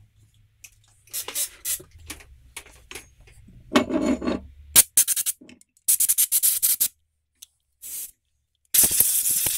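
Compressed-air blow gun giving several short blasts, then a longer steady hiss near the end, blowing the metal chips out of a freshly re-tapped drain-plug thread in an aluminium engine crankcase. A brief handling noise from the case comes about four seconds in.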